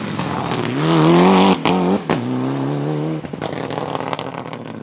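Rally car engine at full throttle as the car comes past, its note swelling loud and then briefly cutting out twice in quick succession before carrying on and dropping away.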